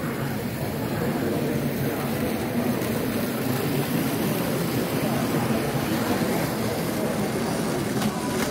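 Steady exhibition-hall din: H0 model trains running on the layout track with a continuous low rumble, under faint background chatter.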